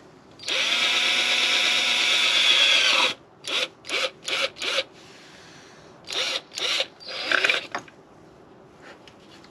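Electric drill boring a hole through a plastic water-tank filler cap: one continuous run of about two and a half seconds, then a string of short trigger bursts as the bit finishes the hole.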